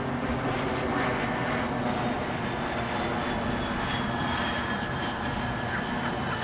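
Steady low drone of a distant engine.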